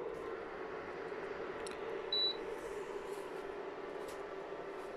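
Portable induction hob running with a steady hum, likely its cooling fan, and giving one short high beep from its touch controls about two seconds in.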